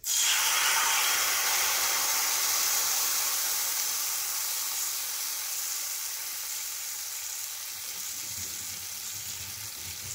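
Water-soaked tamarind dropped into hot mustard oil in a kadai, sizzling loudly. The sizzle starts suddenly and slowly dies down.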